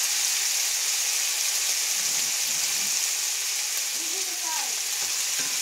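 Diced pork sizzling in hot oil in a cast-iron skillet: a steady frying hiss.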